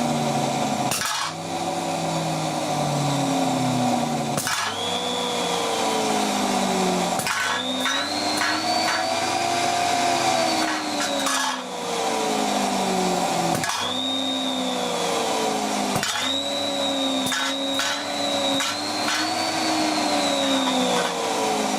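Capacitor-bank charger giving off a steady electrical whine. Its pitch slides down over a few seconds and then jumps back up with a sharp click, several times over.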